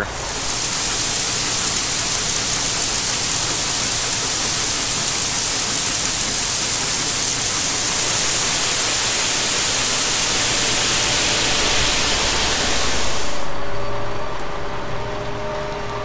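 Shelled corn pouring from a grain cart's unloading auger into a semi trailer: a loud, steady rush of grain that cuts off about three-quarters of the way through, leaving a tractor engine running.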